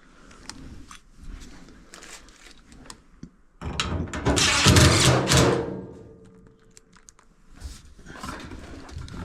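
Parts being handled during washer reassembly: faint clicks, then a loud clattering scrape of about two seconds in the middle.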